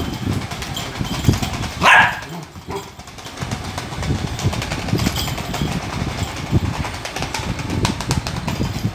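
A puppy barks sharply about two seconds in, with a smaller yip soon after, while a battery-powered light-up toy ball rumbles and knocks as it rolls on its own across a hard floor.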